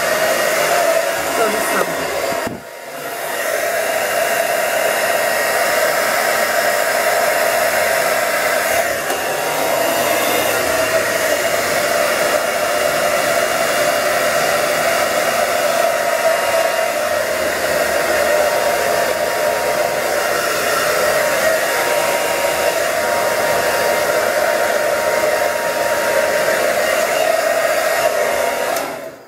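Handheld hair dryer running steadily, blowing on short hair; it dips briefly about two and a half seconds in and is switched off just before the end.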